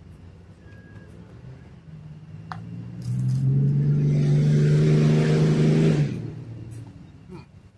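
A motor vehicle's engine running loud as it passes close by. It swells about three seconds in, holds a steady low pitch for about three seconds, then fades away.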